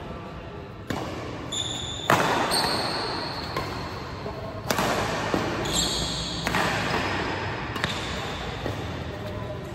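Badminton rally: racket strikes on the shuttlecock about every one to two seconds, the loudest about two and five seconds in. Short high squeaks of shoes on the court floor come between the hits.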